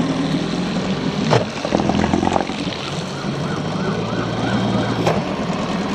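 Small boat's outboard motor running under way, with water rushing along the hull and a few knocks. A warbling high tone comes in for about a second a little after the middle.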